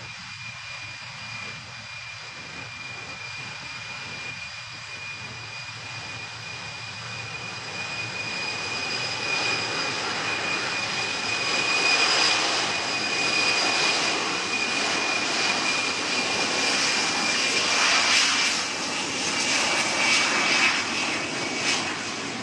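Ilyushin Il-76TD's four wing-mounted Soloviev D-30KP turbofan engines running as the jet moves on the runway: a rushing jet noise with a steady high-pitched whine. It grows louder about a third of the way in and eases off near the end.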